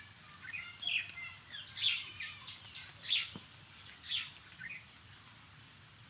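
Small birds chirping: a string of short, high calls, the loudest coming about one, two, three and four seconds in.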